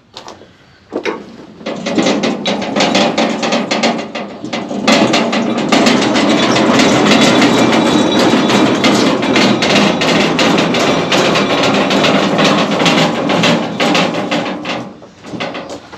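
Sawmill at work: a dense, continuous clatter of rapid knocks over a faint steady engine hum. It builds up about a second in and eases off near the end.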